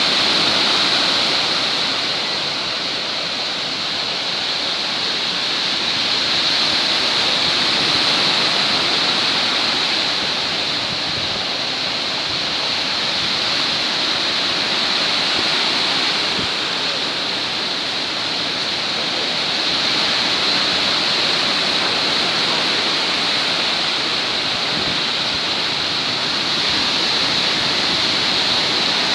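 Stormy Black Sea surf breaking on the shore: a continuous rush of breaking waves that swells and eases every six or seven seconds.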